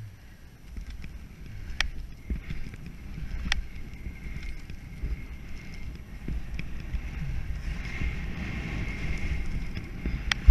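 HEAD alpine skis sliding over snow, a steady scraping hiss over low wind rumble on the microphone, the hiss growing louder in the second half. Two sharp ticks in the first few seconds.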